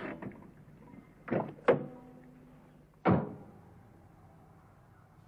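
Door sound effects: a thud at the start, two sharp slams in quick succession about a second and a half in, and another slam about three seconds in, each with a short ring.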